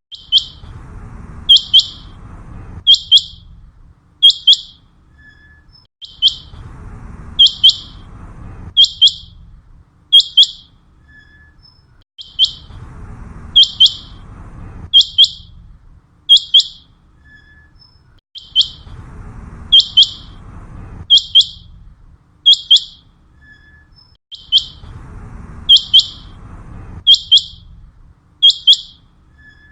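Common quail calling: short, sharp, high notes in quick groups, repeated over and over in a steady rhythm, over a low background rumble that comes and goes.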